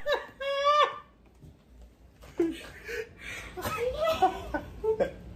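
A short, high, wordless vocal squeal about half a second in, then quieter scattered voice sounds with no clear words.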